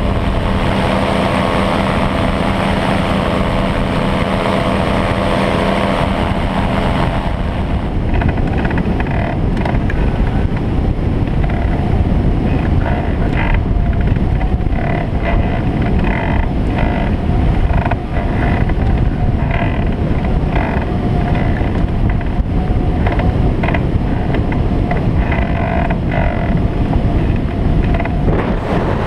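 Briggs & Stratton Vanguard engine and propeller of a Bautek Skycruiser microlight trike running steadily; about seven seconds in it drops out abruptly. After that only wind rushing and buffeting over the microphone is heard, with a faint steady whistle, as the trike glides with the engine off.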